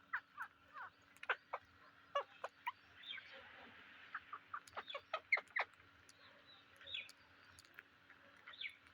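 Psittacula parrots giving short, high, downward-sweeping chirps and squawks in quick irregular runs, busiest in the first half and sparser near the end.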